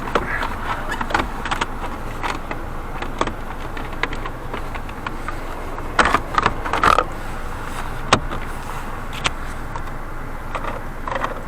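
Plastic clicks and knocks of a climate control panel being pressed back into a car dashboard, with a cluster of clicks about six to seven seconds in and a single sharp click around eight seconds, over a steady background noise.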